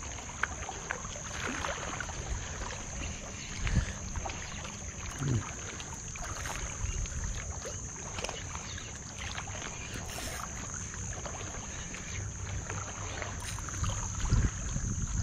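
Small waves lapping against a rocky shoreline, with a steady high, thin hiss underneath and a few faint clicks.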